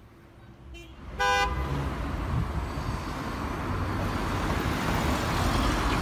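A car horn gives one short toot about a second in. Cars then drive past close by, their engine and tyre noise growing louder toward the end.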